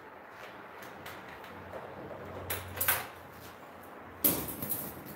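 Knocks and clatter from handling PVC window-frame parts on a workbench: a few light knocks in the middle, then a sharper knock about a second before the end followed by a brief rattle.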